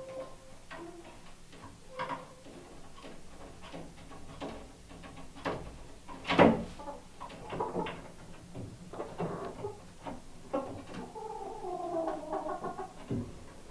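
Chickens settling on their roost for the night, making sleepy cooing and soft clucking noises mixed with short scratchy clicks. There is one sharp, louder sound about six and a half seconds in, and a longer wavering coo near the end.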